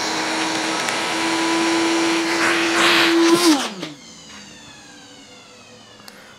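Vacuum cleaner running at the hole, sucking up drill swarf and cutting chips from a head-bolt hole just drilled in the engine block. It gives a steady motor hum and hiss, louder for a moment about three seconds in. It is switched off just before four seconds in, and the motor's whine falls away as it spins down.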